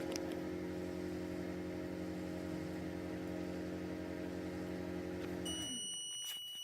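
Microwave oven running with a steady hum, then winding down with a falling pitch about five and a half seconds in as its done-beep sounds for about a second, with a few clicks.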